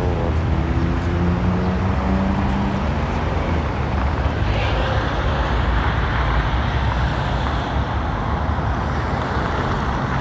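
Steady street traffic noise, with a low engine drone holding an even pitch for the first few seconds. The traffic hiss grows a little louder about four and a half seconds in.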